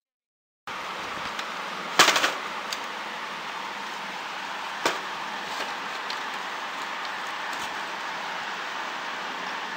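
Plastic chassis of an Epson inkjet printer being turned over and handled on a wooden table: a short cluster of knocks and rattles about two seconds in, a single sharp knock near the middle and a few light taps, over a steady hiss. The sound starts after a brief dead silence.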